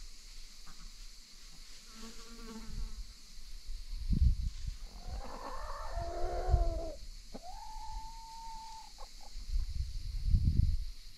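Free-range hens calling: a short low call, then a longer wavering call, then a drawn-out steady one. Low rumbles on the microphone peak twice.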